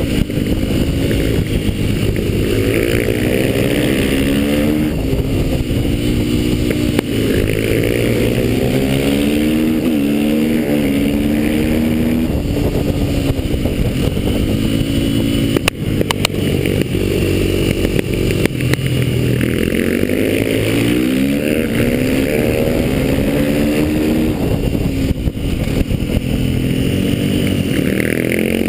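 KTM supermoto motorcycle engine heard onboard while lapping a track, revving up through the gears and dropping back over and over, its pitch rising and falling with each acceleration and braking for corners.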